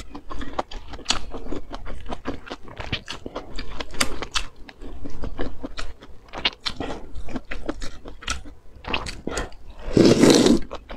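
Close-miked chewing with many short wet mouth clicks, then a loud slurp of noodles near the end.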